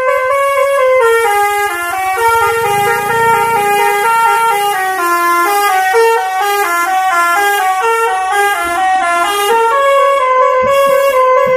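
Bus telolet horn, a set of electric air-horn trumpets, playing a fast tune of short notes that step up and down in pitch without a break. A low rumble sits under it for a few seconds early in the tune.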